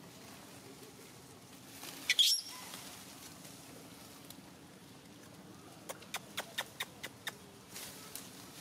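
A short high chirp rising in pitch about two seconds in, then a quick run of about seven sharp clicks, roughly five a second, over a faint steady forest background.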